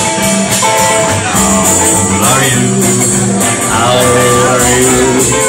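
Live band music with guitar, played loud and steady.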